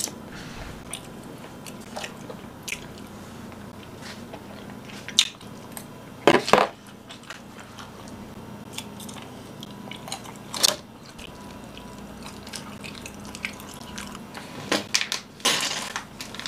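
Close-miked eating: chewing and crunching with scattered mouth clicks, and a few louder sharp crackles now and then. A faint steady hum sits underneath.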